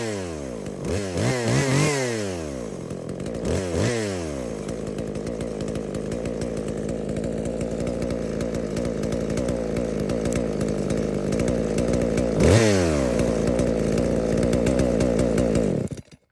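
Classic two-stroke chainsaw engine revved up and down a few times, then running steadily with one more quick rev about twelve seconds in, and cutting off abruptly near the end.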